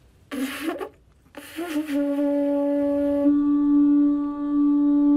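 Pututu, a conch-shell trumpet, blown: two short breathy blasts that rise into pitch, then one long steady note held loud, the instrument's main note.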